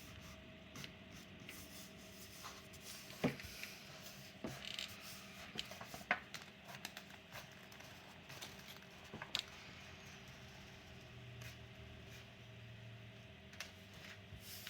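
Faint handling noise as an adhesive vinyl laptop skin is pressed and smoothed onto the laptop lid: light rubbing with scattered small clicks and taps, the sharpest about three, six and nine seconds in, over a steady faint hum.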